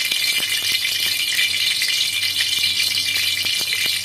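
Hot cooking oil sizzling in an aluminium wok, a steady hiss with many small, irregular crackles. The oil has reached frying heat, ready for the aromatics to go in.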